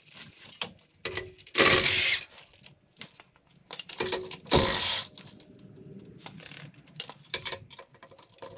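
Cordless impact wrench spinning out the clutch pressure-plate bolts in two short bursts, about one and a half seconds in and again near four and a half seconds, with light metal clicks between.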